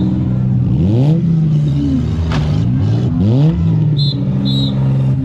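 Demolition-derby compact car engines running and revving up twice, with a sharp bang about two and a half seconds in. Two short high chirps come near the end.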